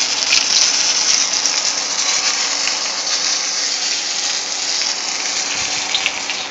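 Hot oil sizzling and crackling in a frying pan where flour-coated squirrel pieces are being pan-fried: a steady hiss with scattered pops, growing a little fainter near the end.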